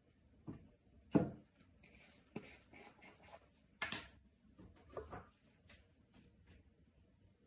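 Craft supplies handled and set down on a sheet-covered table, among them a small plastic jar of pigment: a few light knocks, the loudest about a second in, with some rustling in between.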